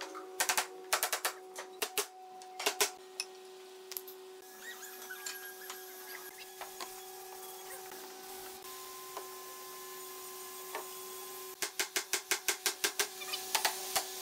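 Hammer knocking wooden cabinet frames and panels into place: quick runs of taps, about five a second, at the start and again in the last few seconds, with a quieter stretch between. A steady hum runs underneath.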